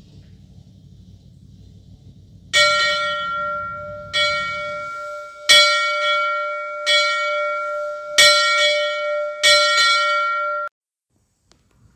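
Locomotive bell on a Climax geared steam locomotive being rung by hand: six clanging strikes about a second and a half apart, each ringing on, until the sound cuts off suddenly near the end.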